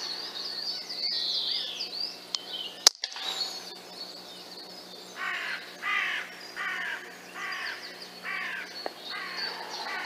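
A single sharp crack from the FX Streamline air rifle firing, about three seconds in, after which the scope's sound drops out for a moment. Then a corvid gives about six harsh, evenly spaced caws, with songbirds singing throughout.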